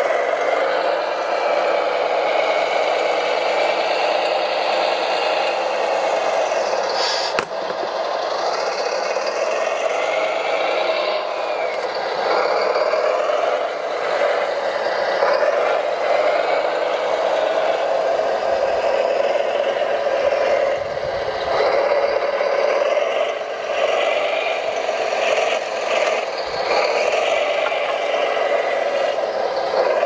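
Scale-model RC Volvo wheel loader working: a steady whine from its electric motors and hydraulic pump, shifting a little in pitch as the arms and drive are worked, with rattling and scraping over gravel and rock.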